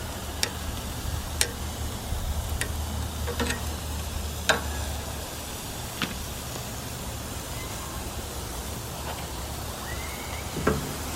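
Burger patties sizzling on a grill, a steady hiss with a few light clicks and taps scattered through it.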